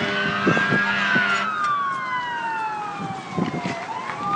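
Emergency vehicle siren in a slow wail, its pitch rising to a peak about a second in, falling steadily until near the end, then starting to climb again.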